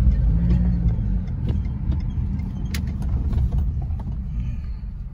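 Low, steady rumble of a car's engine and tyres heard from inside the cabin while driving, easing off gradually, with a few faint clicks.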